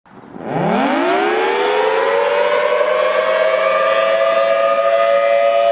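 Civil defense siren winding up from a low pitch, rising over the first two seconds and then holding a steady wail, as the alarm tone opening an emergency alert.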